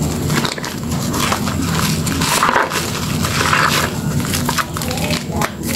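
Hands squeezing and kneading thick soap lather and a soaked sponge in a metal bowl: a wet, crackling squelch of foam bubbles popping, with louder squishes near the middle.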